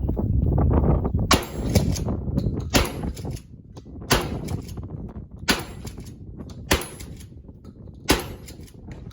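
Six gunshots fired at a steady pace, about one every second and a half. Wind buffets the microphone during the first second or so.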